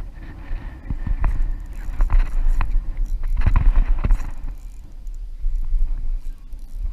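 Wind buffeting the microphone in a heavy low rumble, with a string of sharp knocks and clicks from handling the fishing rod and reel between about one and four seconds in.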